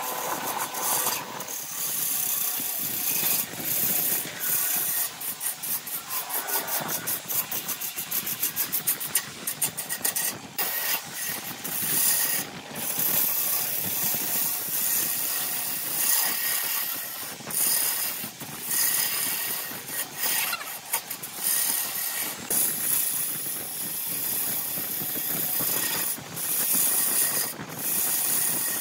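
Wood lathe turning a grapefruit-wood vase while a hand-held turning tool cuts the spinning wood, a hissing scrape of shavings coming off in passes that rise and fall in level. Partway through there is a stretch of rapid ticking.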